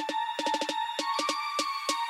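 Electronic background music: a steady high synth tone over a quick, uneven run of sharp percussive clicks.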